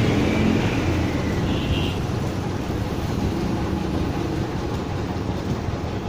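Steady road-traffic noise with the low rumble of passing vehicles.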